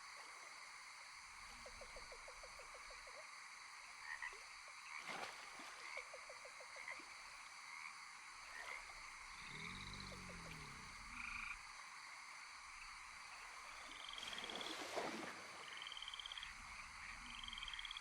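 Faint animal calls: several short runs of rapid, evenly spaced pulses, with short higher chirps in between, over a steady hiss.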